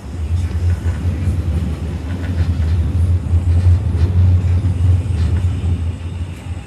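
Passenger train running, a steady low rumble of the carriage on the rails.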